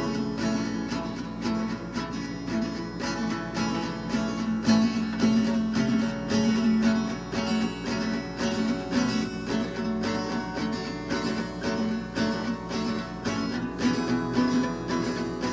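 Acoustic guitar strummed in a steady rhythm: the instrumental intro of a song, before the singing begins.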